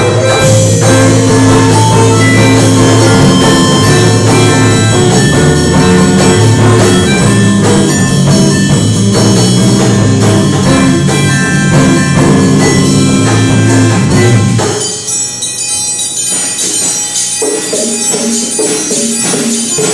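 Live ensemble music with drum kit, guitar and hand percussion playing. About fifteen seconds in the low, heavy part drops out and a lighter, sparser passage follows.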